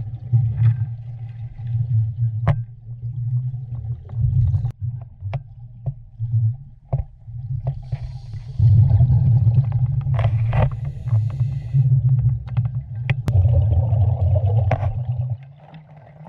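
Muffled underwater rumble picked up through an action camera's waterproof housing, with scattered sharp clicks and knocks. The rumble comes and goes, holds steadier in the second half, and fades out near the end as the camera comes up just under the surface.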